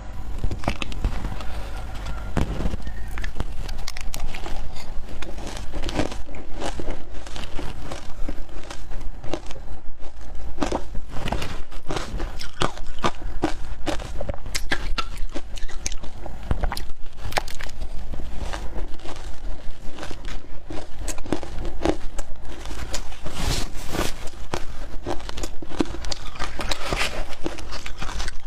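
Frozen matcha ice being bitten and crunched close to the microphone: a dense, irregular run of sharp crunches and crackles with no pause.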